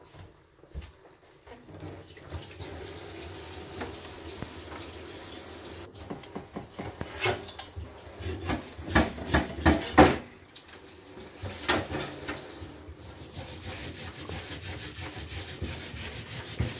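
Kitchen tap running into a sink, starting about two seconds in, while a burdock root is washed under it, with a run of knocks and rubbing strokes in the middle.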